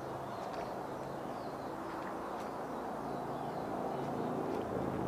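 Steady low background hum with a few faint, scattered bird chirps.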